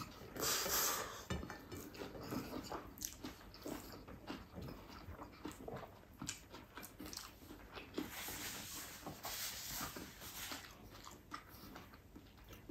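Close-up mouth sounds of someone eating rice and spicy sardines by hand: soft, wet chewing and small smacking clicks. Two longer soft rushes of noise come about half a second in and again around eight to ten seconds.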